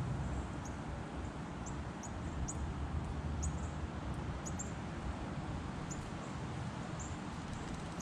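Small songbirds giving short, very high, thin call notes, about one or two a second, over a steady low outdoor rumble.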